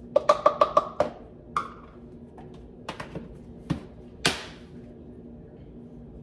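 Plastic Tupperware measuring scoop tapped quickly against the rim of a plastic dressing-mixer cup to knock out the sugar, about half a dozen rapid knocks. A few scattered clicks follow, then a sharper snap a little after four seconds in as the lid is pressed onto a plastic Tupperware canister.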